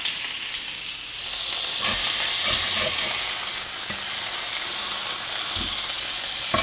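Swordfish steaks sizzling steadily on a hot ridged grill pan, with a few short knocks and scrapes of a fork against the pan as the steaks are turned.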